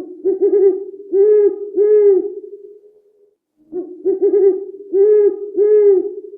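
Pigeon cooing: two phrases of low, rolling coos, each a short note followed by three longer coos.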